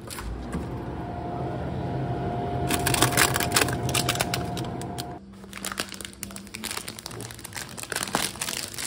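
A shop's glass-door freezer case opening with a soft thump, its fan humming steadily with a held tone. From about three seconds in, the plastic wrapper of an ice bar crinkles as it is taken out. The hum stops suddenly about five seconds in, and the wrapper goes on crinkling.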